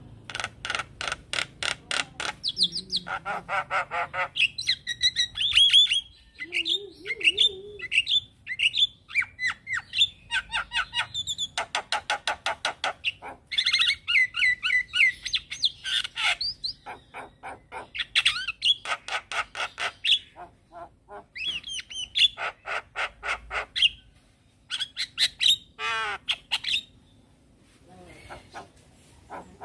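Javan myna in full song: fast runs of rattling, repeated notes of about eight a second, mixed with squeaky whistles that rise and fall, with short pauses between the phrases.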